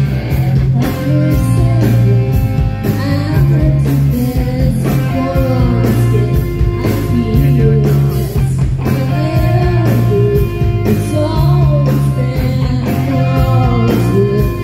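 Rock band playing live: a sung vocal melody over electric guitar, bass and drums, loud and steady throughout.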